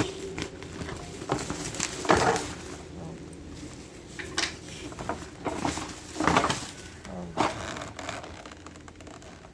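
Packaging of a delivered parcel being opened and handled by hand: a series of short rustles and scrapes, the loudest about two seconds in, over a faint steady hum.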